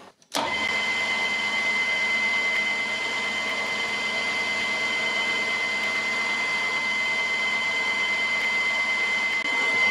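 Emco Maximat Super 11 metal lathe running steadily with a high whine while its tool turns square bar stock round. The sound starts abruptly about a third of a second in.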